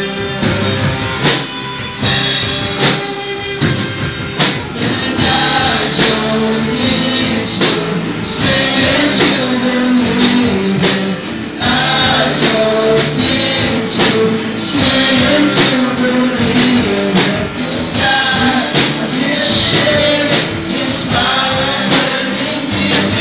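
A live band playing a worship song on electric guitar and drums, with singers on microphones leading it.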